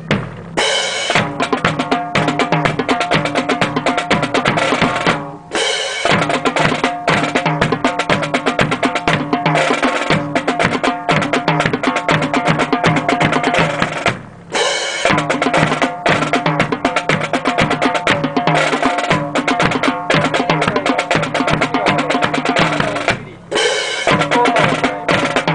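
Drum-driven march music accompanying a rifle drill: a fast, steady snare and bass drum beat over sustained tones. It breaks off briefly three times, about five, fourteen and twenty-three seconds in.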